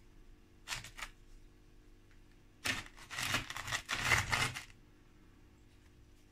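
A dragon stone (Ohko rock) being set down and worked into sand in a tray: two short scuffs, then about two seconds of gritty scraping and crunching as the rock is pushed into place.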